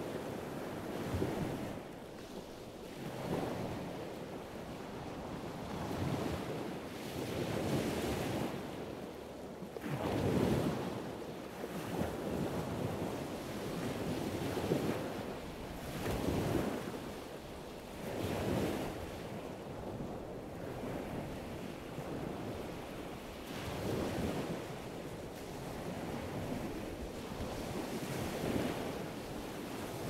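Wind buffeting the microphone in irregular gusts every couple of seconds, over the rushing wash of a choppy sea.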